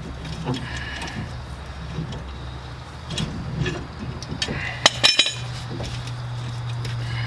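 Hand tools clinking and knocking on steel while a truck's leaf spring pack is worked on, with a loud cluster of metal clanks about five seconds in, over a steady low hum.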